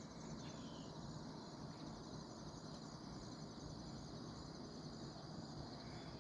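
Faint, steady chorus of insects trilling in the grass, typical of crickets, with one short bird chirp about half a second in.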